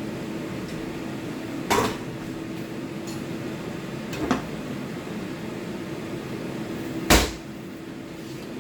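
Three separate sharp knocks in a kitchen, a couple of seconds apart, the last the loudest, over a steady low hum.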